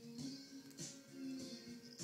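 Background music with steady held low notes.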